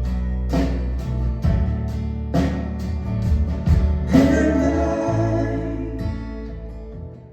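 Live band music: strummed acoustic guitar chords with singing, the sound dying down near the end.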